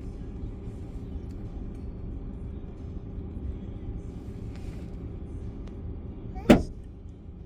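A single rifle shot, one sharp crack about six and a half seconds in, heard from inside a vehicle over the steady low rumble of its idling engine.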